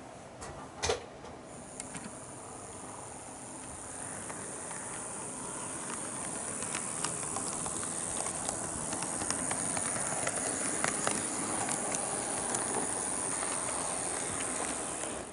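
A sharp click about a second in, then the high-pitched whine of an HO-gauge model EF81 locomotive's motor as the train gets under way, growing louder, with the wheels ticking over the track joints more and more often.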